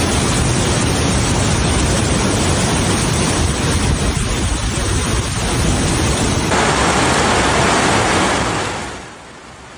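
Loud, steady rushing of floodwater in the street along with heavy rain. About two-thirds of the way through it changes abruptly to a brighter hiss, which fades away near the end.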